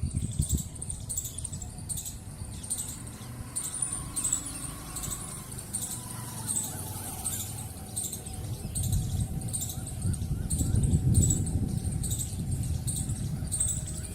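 A small bird chirping over and over, a short high note repeated about two or three times a second, with a low rumble underneath that swells near the end.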